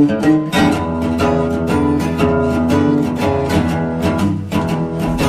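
Background music led by plucked acoustic guitar with a steady rhythm, a bass line coming in about half a second in.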